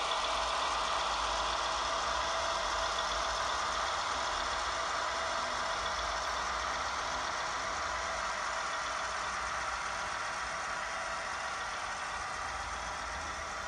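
Class 58 diesel locomotive engine sound played by an ESU LokSound decoder through the small onboard speaker of an EFE Rail Class 58 model as it runs along the track. The engine note is steady and grows slowly fainter as the model moves away.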